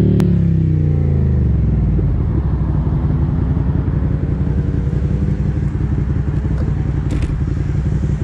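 Motorcycle engine heard on board the bike, its revs dropping as it slows, then running at low revs with an even pulsing beat. A single brief click just after the start.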